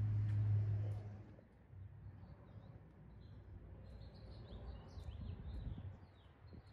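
Small birds chirping and twittering in quick, scattered calls over faint background rumble, with a low steady hum that stops a little over a second in.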